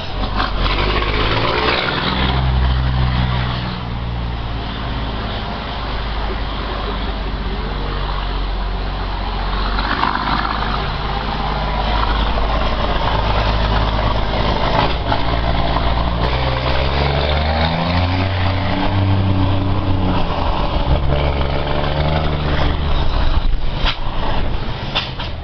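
Scania R420 truck's six-cylinder diesel running loud through a straight-piped exhaust, a deep engine note whose pitch rises and falls several times as the truck is driven.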